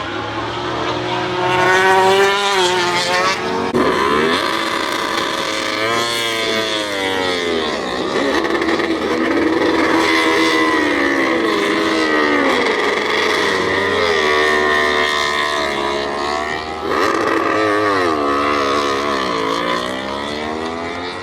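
Racing motorcycle engines at high revs as bikes pass one after another, the pitch climbing and dropping several times.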